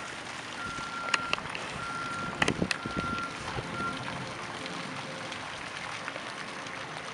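A vehicle's reversing alarm beeping at one steady pitch, four beeps about a second apart, the last one short, then it stops about four seconds in, over steady outdoor background noise. A few sharp knocks or clicks stand out about a second in and again about two and a half seconds in.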